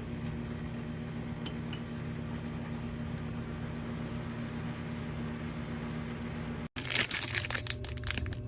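A steady low hum, then, after a sudden cut near the end, rapid crinkling and clicking handling noises.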